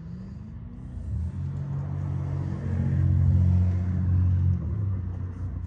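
A motor vehicle's engine running as a low hum that rises in pitch briefly at first, swells to its loudest around the middle and eases off near the end.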